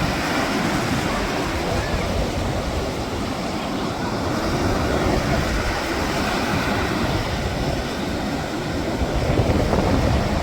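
Ocean surf washing onto the beach, steady, with wind buffeting the microphone in a low, uneven rumble.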